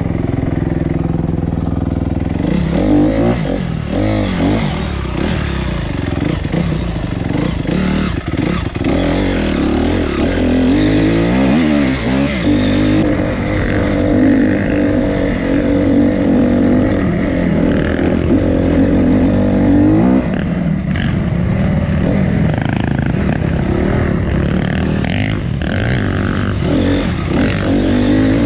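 Off-road motorcycle engine running under load while riding a dirt trail, its revs rising and falling repeatedly.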